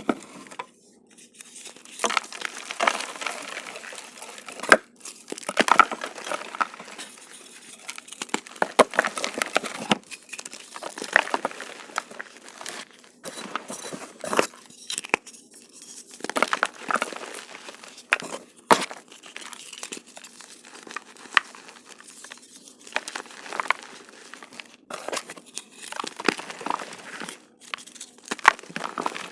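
Dried, reformed gym chalk being crushed: a continuous crisp crunching and crumbling, broken by frequent sharp cracks and snaps.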